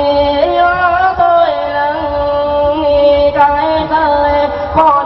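Quan họ folk singing: one voice holds long notes through a microphone, stepping between pitches with small bends.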